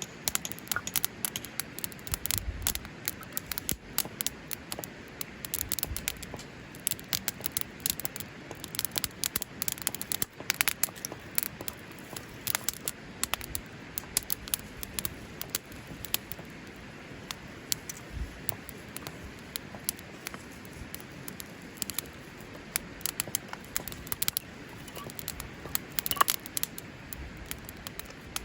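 Wood fire crackling: burning wood giving irregular sharp pops and snaps over a steady low hiss.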